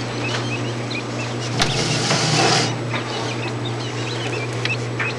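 Button quail chirping, with many short, soft, high hooked peeps scattered through, over a steady low hum. About a second and a half in, a louder rustling noise lasts about a second.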